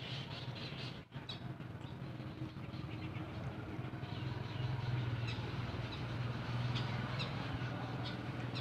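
Rural outdoor ambience: a steady low hum with short high bird chirps scattered through it, and a brief dip in level about a second in.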